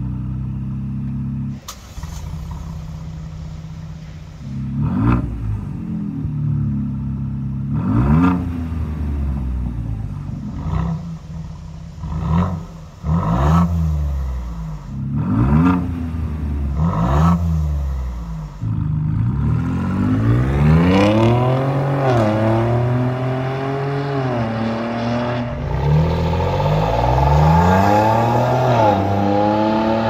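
Ford Bronco engine through an MRT King of the Hill stainless dual-tip axle-back exhaust, idling and then revved in a series of short blips, each pitch rising and falling quickly. From about two-thirds through, a Bronco with a competitor's dual-tip exhaust is revved in longer, held rises and falls with a fuller, denser tone.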